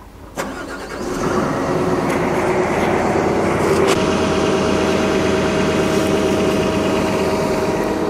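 Kobelko excavator's diesel engine starting about a second in, after a click, then running steadily. It is being run for a fuel-consumption baseline test on straight diesel.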